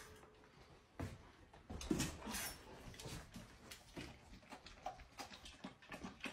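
A stainless steel dog bowl is set down on the floor with a knock about a second in. Then a Labrador laps water from the metal bowl, in quiet small laps at about three a second.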